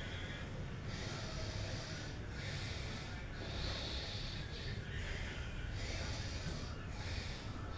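A woman doing alternate-nostril breathing (anulom vilom): slow, hissing breaths through the nose, about six of them, each a second or two long with short pauses between, over a low steady hum.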